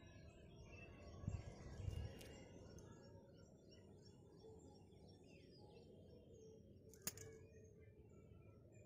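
Faint chirping of small birds. There are two low bumps a little over a second in and a single sharp click about seven seconds in.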